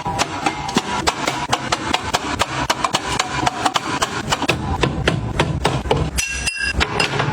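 Rapid light clicks and taps, several a second and fairly regular. About six seconds in they break off briefly and a few short high tones sound.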